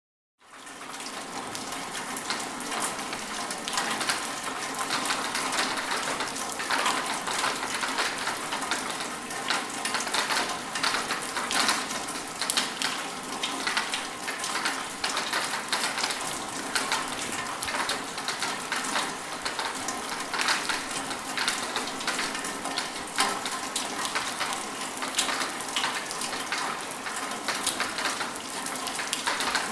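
Steady rain falling, a dense patter of drops hitting surfaces; it starts from silence about half a second in and then holds steady.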